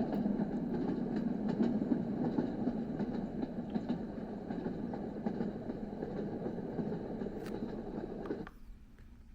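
Dreamegg D1 white noise machine playing one of its built-in noise tracks: a steady low noise with scattered faint clicks. It cuts off suddenly about eight and a half seconds in.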